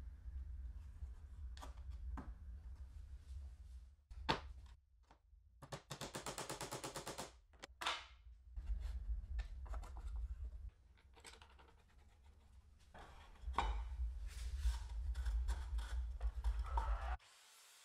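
Handling noises of wooden workpieces and an MDF jig: scattered knocks and clicks of wood on wood, with one sharp knock about four seconds in and a rapid rattle around six to seven seconds. A low hum comes and goes underneath.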